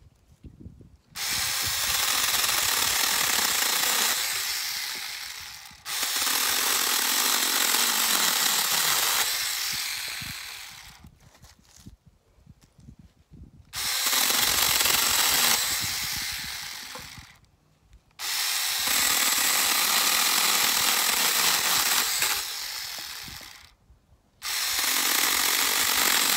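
Small handheld chainsaw cutting thin branches in five separate runs, each starting suddenly and trailing off as the cut finishes.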